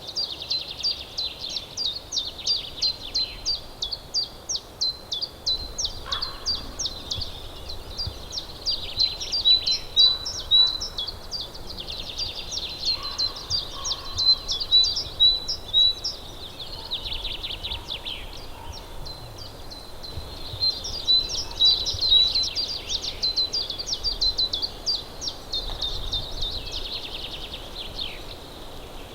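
Songbirds singing: rapid series of high, chirping notes, several a second, going on with a few brief pauses.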